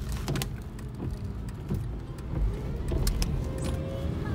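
Honda Civic cabin with a steady low engine and road rumble, over which a paper bag crinkles and scattered sharp clicks sound.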